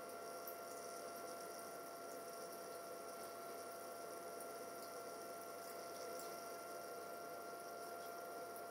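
Steady hum of running equipment with a constant high whine, and a few faint ticks.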